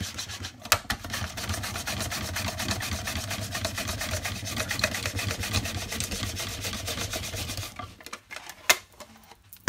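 Onion being sliced thin on a Pampered Chef mandoline slicer, pushed back and forth across the blade in its hand guard: a steady run of quick rasping strokes that stops about eight seconds in. A couple of sharp clicks follow near the end.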